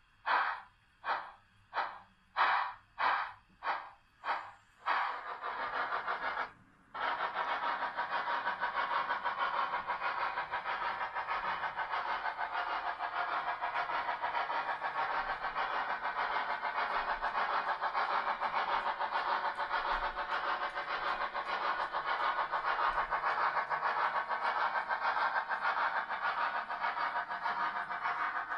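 Model steam locomotive's sound effects: rhythmic chuffing about twice a second for the first five seconds, then a long steady hiss.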